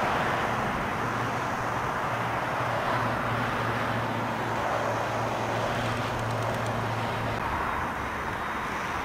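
Jet airliner's engines during the landing rollout just after touchdown: a steady jet rush with a low hum under it, which drops away near the end.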